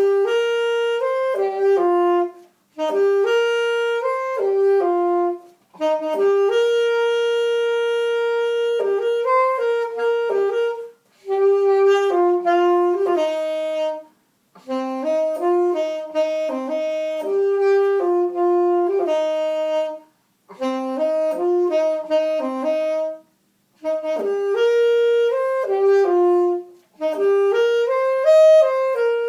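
Solo saxophone playing an unaccompanied melody in short phrases, with a brief breath pause between each phrase and one long held note about seven seconds in.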